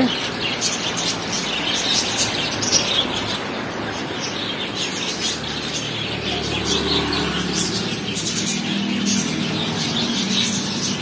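Outdoor night ambience: a steady hiss with many short, high chirps. A faint low hum comes in about halfway through.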